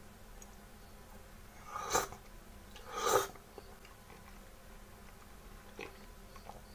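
Two slurps about a second apart, a person eating glass noodles and broth from a bowl of chicken meatball hot pot, then a faint click near the end.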